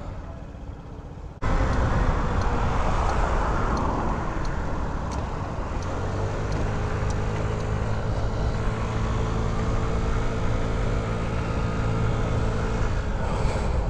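Honda Ruckus scooter on the move: wind and road rush on the microphone, jumping suddenly louder about a second and a half in. Through the second half the scooter's small single-cylinder four-stroke engine hums at a steady pitch.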